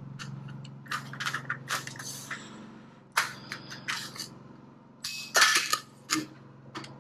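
Sheet aluminum trim coil being handled and worked on a sheet-metal brake: clusters of sharp metallic clicks, knocks and crinkles, over a steady low hum.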